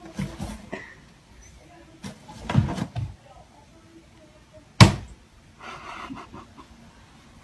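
A few knocks and bumps of something being handled or knocked about, with one sharp, loud knock about five seconds in.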